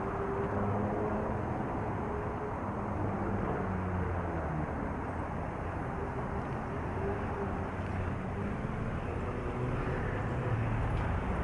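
Steady wind noise on a microphone that lacks a good windscreen, from riding a bicycle in traffic, over the engine hum of nearby cars.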